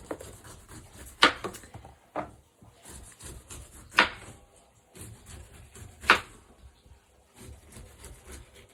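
Knife chopping through a pineapple onto a wooden cutting board: three sharp, loud chops about two seconds apart, with a lighter knock between the first two.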